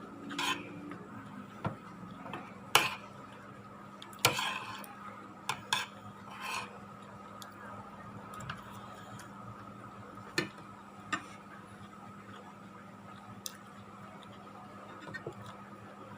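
Spoon or fork clinking and scraping against a plate now and then while eating: a dozen or so separate, irregular clicks. Under them runs a steady faint hum.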